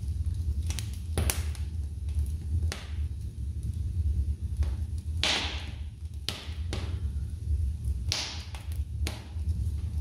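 Wood logs burning in an open fireplace: irregular sharp crackles and pops a second or two apart, the loudest about five seconds in trailing off in a brief hiss, over a steady low rumble.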